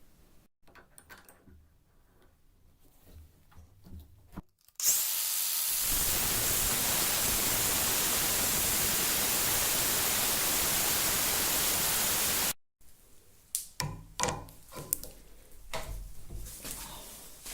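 A power tool working metal: about seven seconds of loud, steady grinding noise that starts and stops abruptly. Before it come light taps of handling; after it, a run of knocks and clatter.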